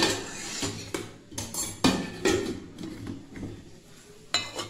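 Glass mugs clinking and knocking as they are handled on a tabletop: several sharp, separate clinks, the one near the end ringing briefly.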